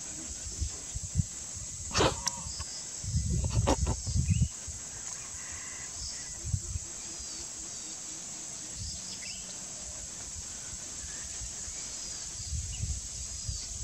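Low rustling and brushing of a wild Asian elephant shifting in tall grass as it rubs its legs and rump to scratch itself, in a few bursts with a sharp crack about two seconds in. Behind it a steady high insect drone and a few short bird chirps.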